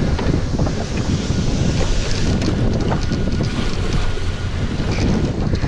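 Wind buffeting the microphone over a fishing boat's steady low engine hum and the wash of rough sea.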